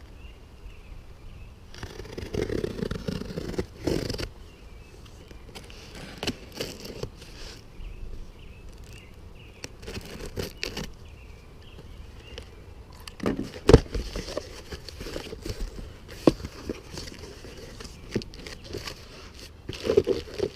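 A boxed tool kit's packaging being handled and opened by hand: scraping and crackling rustles with scattered knocks, the sharpest about two-thirds of the way through.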